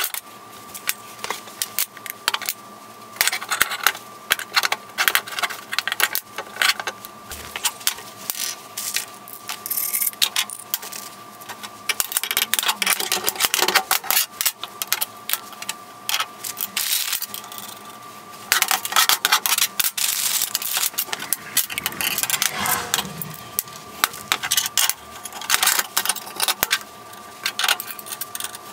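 Steel linkage bars, bolts and nuts clinking and clattering against each other and a steel workbench as they are handled and fitted together, in irregular bursts, over a faint steady hum.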